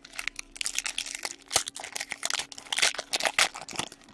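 Foil wrapper of a hockey card pack crinkling and tearing as it is handled and opened, a dense run of irregular crackles.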